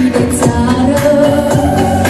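A teenage girl singing a pop song into a microphone, amplified over a backing track with a steady beat; she holds long notes.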